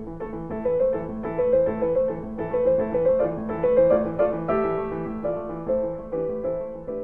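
Piano music: a slow melody of held notes over a repeating lower accompaniment.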